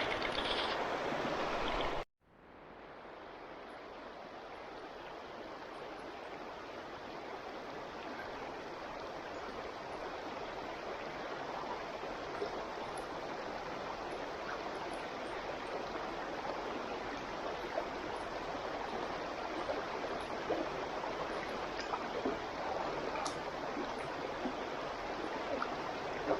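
Stream water flowing steadily. It cuts off abruptly about two seconds in, then fades back in over several seconds and runs on evenly, with a few faint ticks in it.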